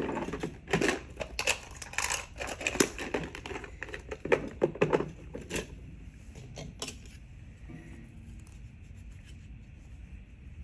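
Irregular clicks, clacks and rustling of small hard objects being handled, dense for about the first six seconds and then dying down to occasional faint ticks.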